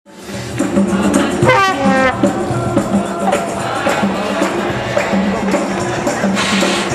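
Trumpet music with accompaniment, with a bright wavering trumpet phrase about a second and a half in and a short burst of hissy percussion near the end.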